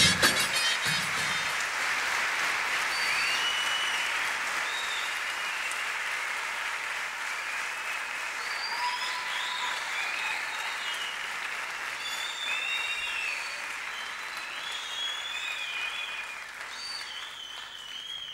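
Theatre audience applauding a performer's entrance, with scattered high whistles over the clapping; the applause slowly dies down toward the end.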